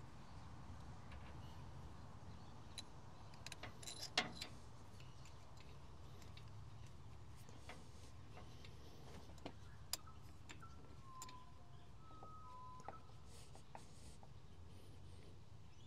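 Faint metallic clicks and taps of a hose fitting and clamp being handled on a diesel engine's heat exchanger, over a low steady hum. A cluster of clicks comes about four seconds in, and one sharp click near ten seconds.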